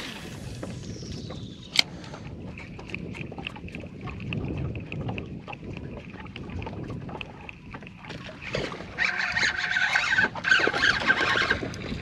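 Spinning reel casting and retrieving a lure: a whoosh at the start with a falling whine as line pays out, a sharp click about two seconds in, then the reel cranking with fast ticking that grows louder and busier over the last few seconds.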